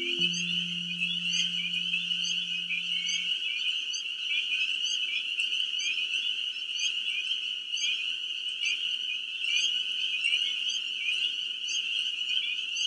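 A dense frog chorus trilling steadily, with many short higher peeps repeating over it. A low piano note from the music fades out in the first few seconds.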